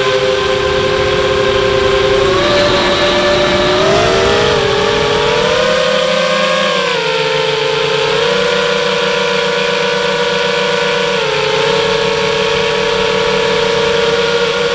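FPV quadcopter's electric motors and propellers whining steadily, several close tones together, the pitch rising and wavering a few seconds in and dropping slightly twice later as the throttle changes.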